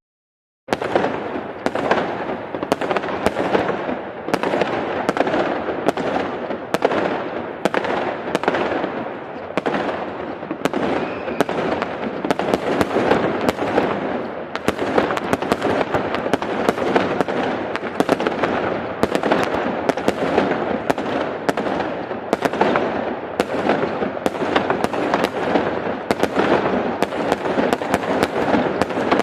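Big fireworks display at its peak: aerial shell bursts going off several times a second and overlapping into a continuous barrage. It starts suddenly after a moment of silence.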